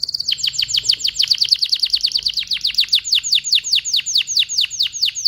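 Canary singing: a fast trill of high, sharply falling whistled notes, about six a second.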